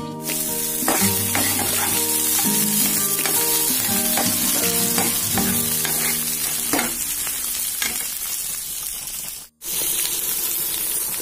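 Sliced onions and green chillies sizzling loudly in hot oil in a pan, starting sharply as they go in, with a spatula stirring and scraping through them. Background music plays faintly underneath, and the sound cuts out for an instant about nine and a half seconds in.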